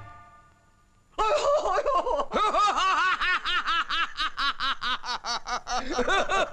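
Laughter from several voices in quick, even 'ha-ha' pulses that start about a second in and speed up toward the end.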